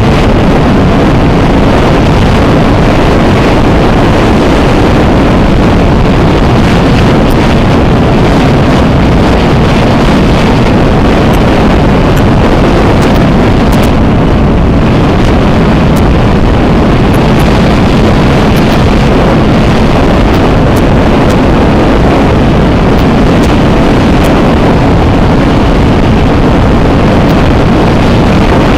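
Loud, steady wind noise buffeting the microphone of a camera mounted on a moving CFMoto 400NK motorcycle, with the bike's parallel-twin engine a faint steady hum underneath.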